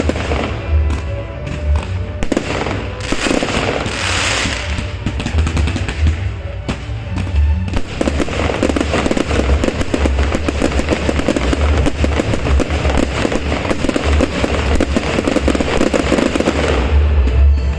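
A New Year fireworks display: low booms from shells bursting, with a thick stream of crackling pops that grows much denser about halfway through.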